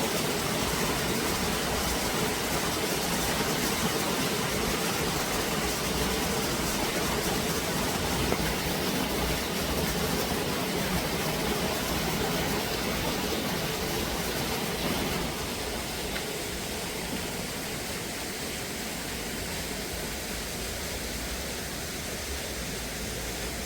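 Steady rain falling, an even hiss with no breaks, dropping a little in level about two-thirds of the way through.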